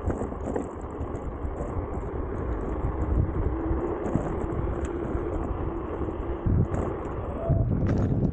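Nami Klima electric scooter riding along a paved path: wind rumbling on the microphone over tyre noise, with a faint steady whine for a few seconds in the middle.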